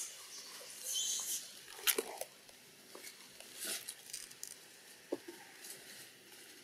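Scattered light rustles and sharp clicks, the loudest a single click about two seconds in.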